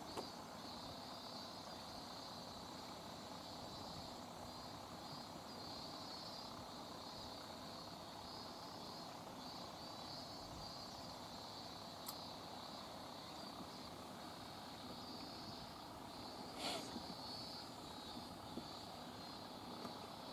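Faint summer outdoor ambience: a steady high chorus of cicadas over a low wash of wind and water. A short sharp knock sounds about three-quarters of the way through.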